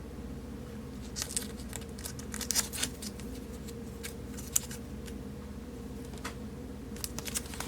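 Light rustling and a few sharp clicks of trading cards and foil card packs being handled, in small clusters, over a steady low hum.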